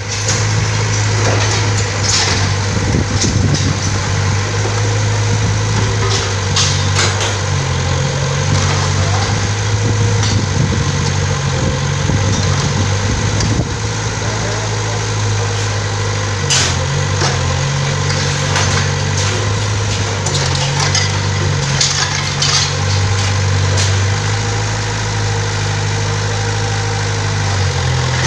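Diesel engine of a tracked mini excavator running under load, its pitch stepping up and down as the hydraulics work, with scattered knocks and clatter of brick rubble during demolition.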